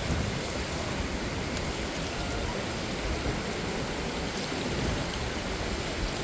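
Steady rushing of a fast-flowing stream.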